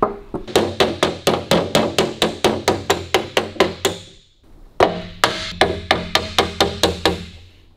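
Picking hammer tapping an aluminium car bonnet panel against a steel dolly held behind it, hammering out a small dent. The taps come quickly, about four or five a second, each with a short metallic ring, in two runs broken by a pause about four seconds in.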